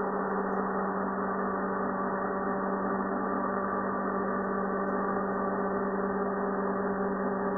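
Small toy RC helicopter hovering, its electric motor and rotors giving a steady, even hum made of a strong low tone with several higher tones above it.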